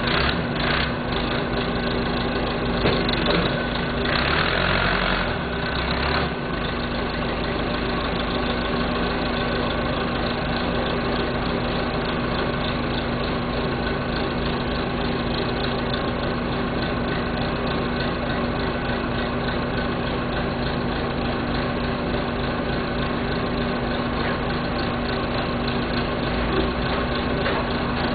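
1976 Massey Ferguson 50D backhoe's engine running steadily, briefly louder for a couple of seconds about four seconds in.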